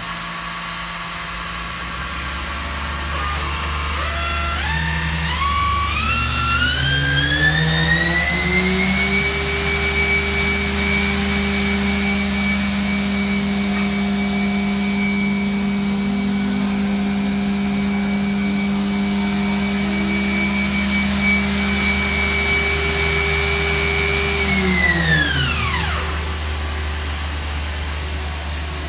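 Mazak Nexus VCN-510C-II machining center's 12,000 RPM spindle running up to speed. Its whine climbs in small steps, holds at one steady pitch for about fifteen seconds, then winds down quickly near the end. A steady low machine hum runs underneath.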